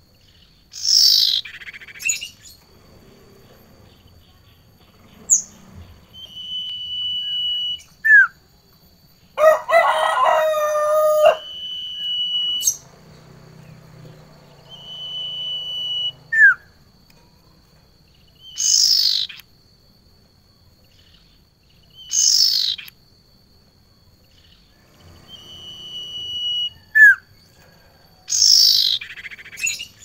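Caged ioras calling: loud, harsh, downward-sweeping calls repeated every few seconds, alternating with a steady held whistle and short sliding chirps. About ten seconds in, a two-second call with several stacked tones stands out.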